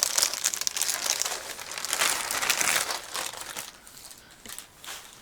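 Plastic packaging crinkling as it is handled, dense for the first few seconds, then dying down to a few scattered crinkles.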